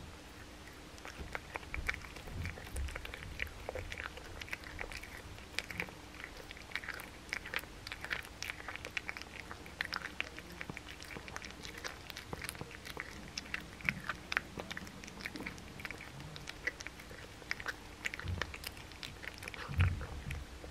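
A blue tortoiseshell cat chewing a boneless raw chicken thigh close to the microphone: irregular biting and chewing clicks, several a second, with a low thump near the end.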